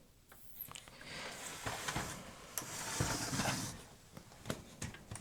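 Tape-handling mechanism of a Toshiba RD-XV50KF DVD/VHS combo deck working with the cover off: several mechanical clicks, with a stretch of whirring noise in the middle, as it tries to take in a VHS tape that the faulty VHS section is not ready to play.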